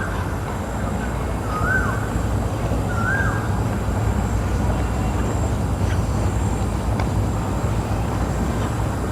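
A steady low rumble with three short, rising-then-falling bird chirps in the first three or four seconds.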